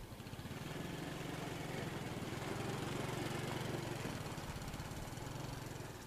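Small motorcycle engine running as it rides past carrying two people, growing louder toward the middle and then fading.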